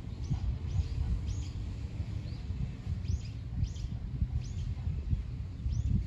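A small bird chirping repeatedly in short, high chirps about twice a second, over a low, uneven rumble.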